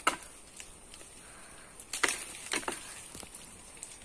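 A long bamboo harvesting pole knocking against the branches of a mango tree: a sharp knock at the start, then three more in quick succession about two to three seconds in.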